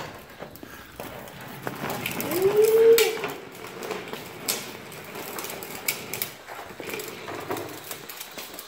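Low ride-on trike rolling across a concrete floor, its hard wheels and metal frame rattling and scraping, with scattered clicks and knocks. About two seconds in, a drawn-out pitched sound rises and holds for about a second.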